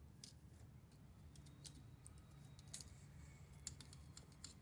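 Near silence with faint, irregular light clicks of a manual typewriter's small metal parts being worked over during wet cleaning with a brush.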